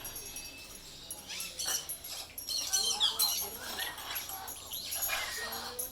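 Several parrots squawking and chattering over one another in short, irregular calls and whistles, loudest about three seconds in.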